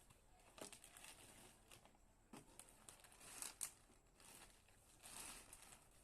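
Faint rustling and a few soft clicks, the loudest about three and a half seconds in.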